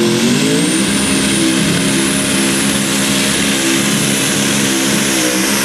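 Twin-turbocharged engine of a modified pulling tractor running at full throttle under load. The turbo whine is high and rises slowly in pitch throughout. The engine note climbs in the first second, holds steady, wavers near the end and then cuts off suddenly.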